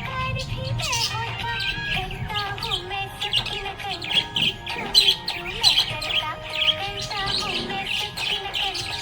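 Budgerigars chirping and warbling continuously: a dense stream of rapid short chirps over wavering, gliding warble notes.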